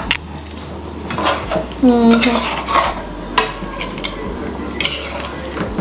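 A metal spoon stirring a thick curry of lobster and conch in a metal pot, with repeated clinks and scrapes against the pot.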